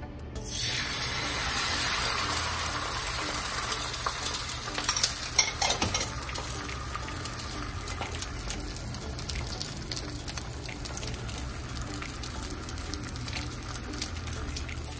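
Eggs dropped into hot oil in 12-inch Lodge cast iron skillets, bursting into a sizzle about half a second in and frying on with constant crackling and spitting. The pans are far too hot, so the eggs burn and stick on contact.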